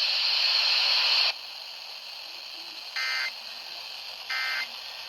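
NOAA Weather Radio broadcast: a steady static hiss cuts off about a second in, then two short warbling digital data bursts sound about 1.3 seconds apart. They are the SAME End-of-Message code that closes the severe thunderstorm warning.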